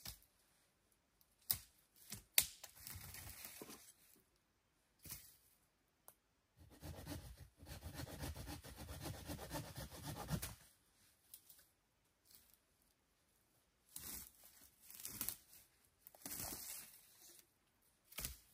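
Dry dead branches being snapped off a fallen tree and broken by hand, for firewood. Two sharp cracks come a second or two in, followed by stretches of twigs and brush crackling and rustling.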